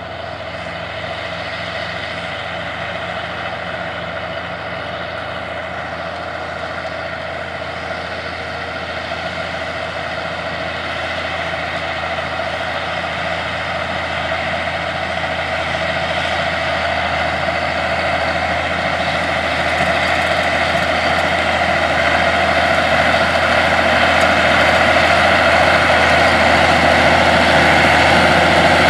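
Allis-Chalmers 200 tractor's turbocharged six-cylinder diesel engine running steadily under load while pulling a tandem disc, growing louder as the tractor approaches.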